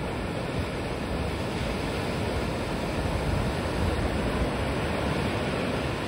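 Ocean surf breaking and washing up a sandy beach, a steady rush of waves that swells a little midway.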